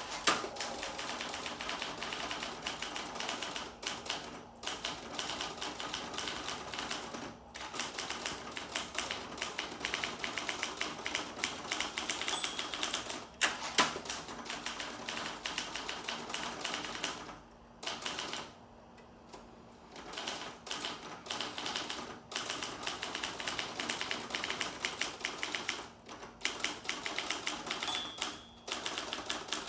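Olympia SG1 manual typewriter being speed-typed: a fast, dense run of key strikes with a few brief pauses and one especially loud clack about halfway through.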